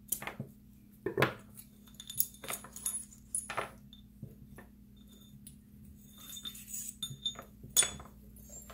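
Scattered clicks and clinks as a small milk-glass lamp is taken apart: scissors cutting its cord, then the metal fitting and glass pieces handled and set down on the table.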